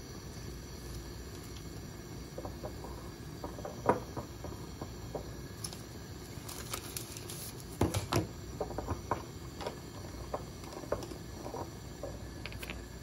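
Hands handling lab gear at a bench: a serological pipette being unwrapped from its paper-and-plastic sleeve, giving scattered rustles, taps and small clicks over a steady background hiss. The sharpest click comes about 4 seconds in, and a quick cluster of knocks about 8 seconds in.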